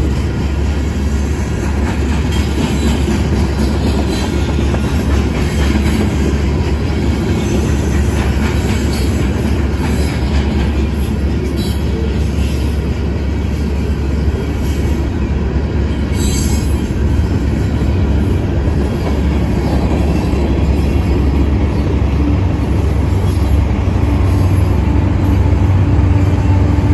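Union Pacific covered hopper cars rolling steadily past, a continuous rumble of steel wheels on rail. Near the end the rear diesel locomotives draw up and their engines join in with a steady low hum.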